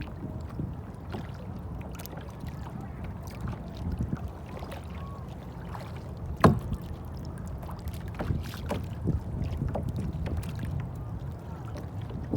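Kayak paddling on lake water: irregular small splashes and drips, with one sharp knock about six and a half seconds in, over a steady low rumble.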